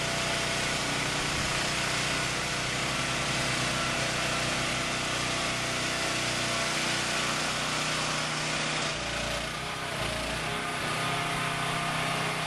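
Container-delivery truck's engine running steadily, with a steady mechanical whine over it.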